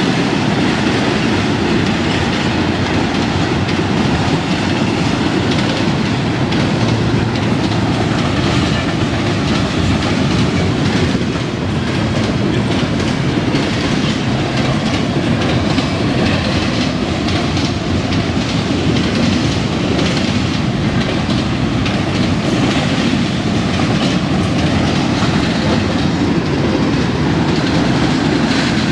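Norfolk Southern double-stack intermodal train passing at speed: a steady, loud rumble of steel wheels on the rails with a constant rapid clatter of wheels over the rail joints.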